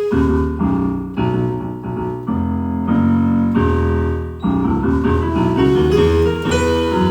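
Electric keyboard playing a turnaround: a run of about a dozen struck chords over low bass notes, changing roughly every half second to a second.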